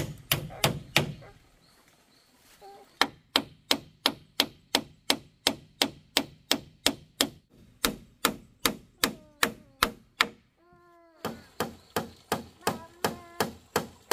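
Hammer driving nails into a wooden railing board, blows coming about three a second in runs broken by two short pauses.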